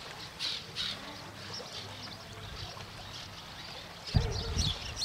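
Small birds chirping in short, high notes over a steady low rumble, with a loud low thump about four seconds in.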